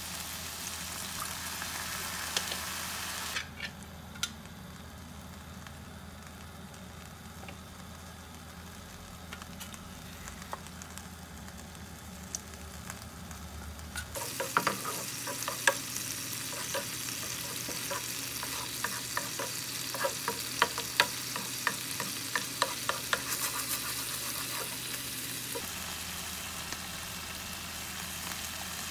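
A chopped onion sauce sizzling in a nonstick frying pan. About halfway through, a spatula stirs it, with many quick clicks and scrapes against the pan for about ten seconds before the sizzle goes on alone.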